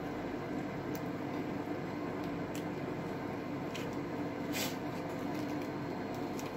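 Steady background hum with a few soft crackles and rustles as a filled flour tortilla is folded into a wrap by hand on a plate.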